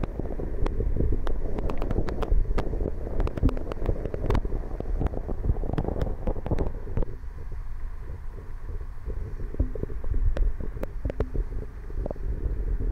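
Submerged camera picking up water movement through its housing: a muffled low rumble with frequent sharp clicks and crackles. The rumble eases a little about halfway through.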